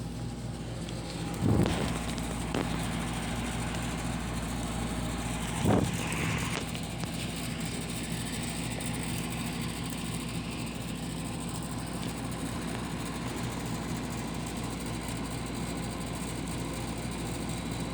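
LG window-type air conditioner running with a steady hum. Two short knocks come about a second and a half and about six seconds in.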